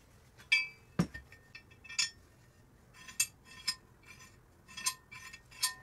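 Metal parts being handled, clinking and tapping against each other: about seven short, sharp, ringing clinks, with one duller knock about a second in.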